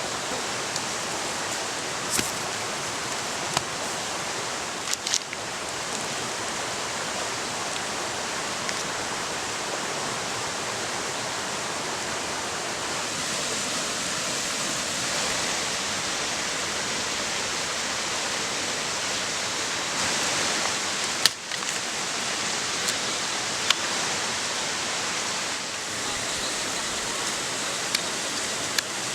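Steady rushing noise throughout, with a few sharp clicks and knocks scattered through it.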